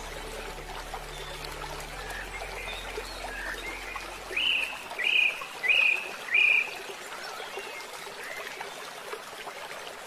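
Birds calling over the steady rush of flowing water, with a run of four loud, short calls about halfway through.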